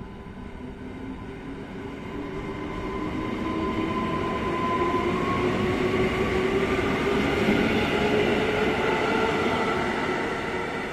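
Polregio electric multiple unit pulling into the platform: rail running noise with a hum of several steady whining tones, growing louder as the train draws close and loudest over the second half.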